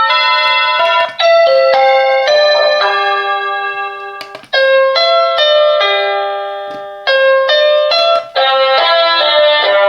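Silvercrest wireless doorbell receiver playing one of its electronic chime melodies, a quick run of piano-like notes. Twice, about four and a half and seven seconds in, a held note fades away and a new phrase starts.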